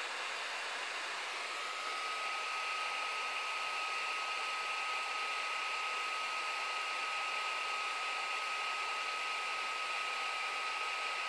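Laptop CPU cooling fan of a Clevo P170EM running at full speed, about 4,000 RPM, under a full CPU stress load. It makes a steady whoosh, and a thin high whine sets in about a second and a half in.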